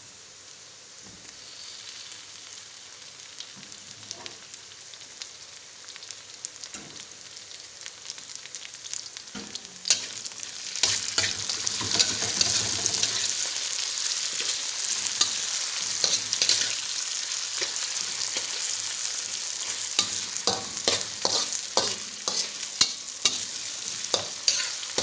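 Sliced onions, spices and freshly added tomato frying in oil in a pan, a steady sizzle that gets louder about ten seconds in. A spoon stirs and knocks against the pan, most often in the second half.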